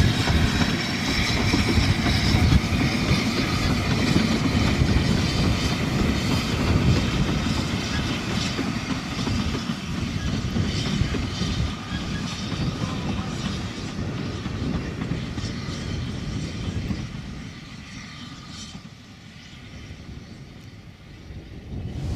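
Narrow-gauge steam tank locomotive LYD, a 2-6-2T, hauling a train of coaches past on the track, the running noise of engine and wheels dying away over the last few seconds as the train moves off.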